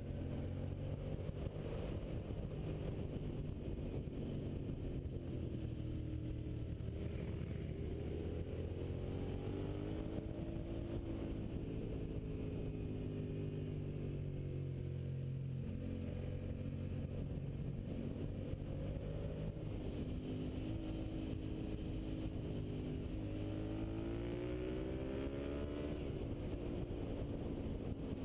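Suzuki SV650's V-twin motorcycle engine heard from on board, running continuously with its revs rising and falling again and again as the throttle is worked.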